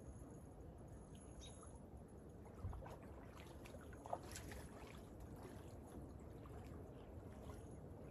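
Faint lakeshore ambience: a steady low wash of small waves lapping at the shore, with a soft thump about two and a half seconds in and a short click about four seconds in.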